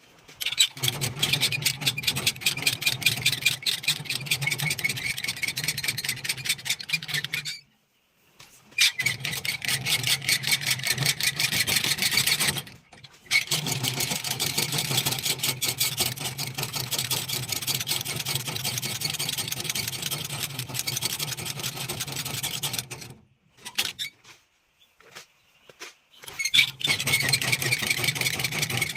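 A dense chorus of many eight-day-old chicks peeping together, over a steady low hum. It breaks off abruptly three times.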